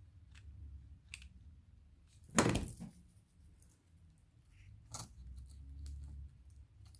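Small handling sounds of hands working craft materials: scattered light clicks and taps, a louder short knock with a rustle about two and a half seconds in, and another sharp tap around five seconds.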